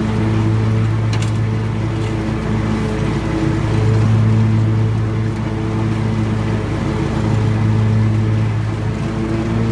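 Scag Tiger Cat zero-turn mower's engine running steadily while mowing, a low hum that swells and eases slightly every few seconds.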